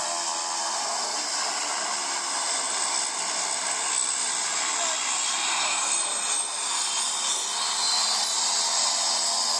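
Short SC.7 Skyvan's twin turboprop engines running as it taxis: a steady propeller drone with a high turbine whine that rises slightly about six seconds in.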